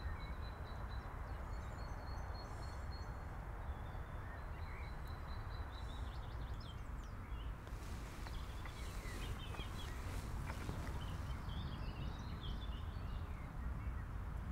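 Several wild birds chirping and singing over a steady low rumble of wind noise. A thin, held high trill sounds in the first few seconds, and the chirping gets busier from about halfway through.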